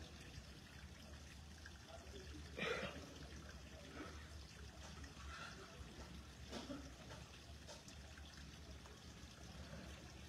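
Very quiet: a low steady hum with a man's few faint breaths or sighs, the clearest about three seconds in.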